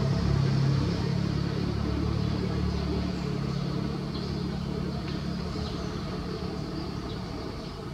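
Low, steady hum of a running motor vehicle engine, slowly growing fainter. Faint short high chirps join in from about three seconds in.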